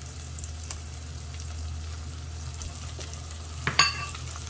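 Spice blend, garlic paste and pepper paste sizzling in hot olive oil in a non-stick aluminium pot as they are stirred. A single sharp, ringing clink comes a little before the end.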